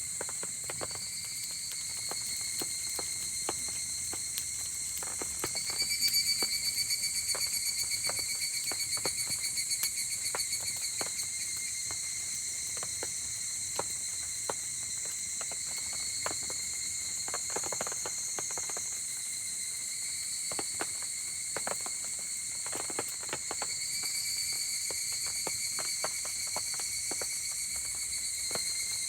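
Steady chorus of insects, high trilling notes that swell louder about six seconds in and again near the end, over irregular sharp crackles and pops from a wood campfire.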